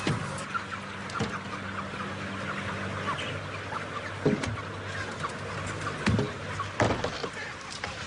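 A crowded house of broiler chickens clucking and chirping all together, with scattered sharper calls. A steady low hum underneath fades out about three seconds in.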